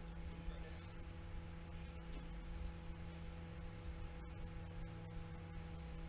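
Steady electrical hum made of several held tones over a low rumbling noise, with no distinct events.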